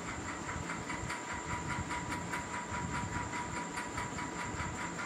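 Steady background noise: a hiss with a faint hum and a fast, even ticking, about six or seven ticks a second.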